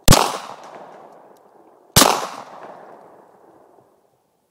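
Two shots from a Glock 23 .40 S&W pistol, about two seconds apart, each trailing off in a long echo.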